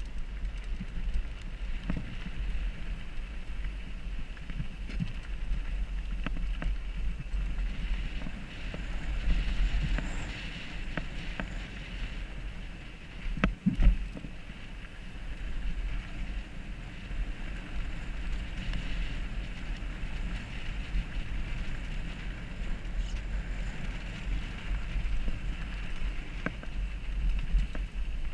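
Mountain bike riding down a trail heard from a helmet-mounted GoPro: steady wind buffeting on the microphone with the bike rattling and knocking over bumps, and one heavy thump about halfway through.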